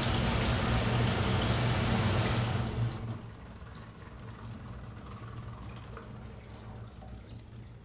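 Shower water spraying steadily, then shut off under three seconds in: the spray stops and only faint drips and small ticks remain.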